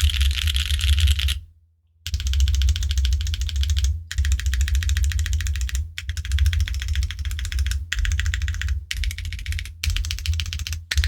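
Typing on a QwertyKeys Neo65 mechanical keyboard with Dangkeebs Cookies n' Cream tactile switches, GMK keycaps and a carbon fiber plate. Fast runs of key strikes a second or two long, with brief pauses between them. The sound is clacky and high-pitched.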